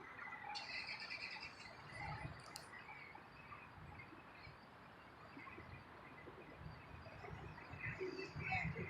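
Faint outdoor evening ambience with scattered bird chirps and calls. A high, buzzy trill runs for about two seconds starting half a second in.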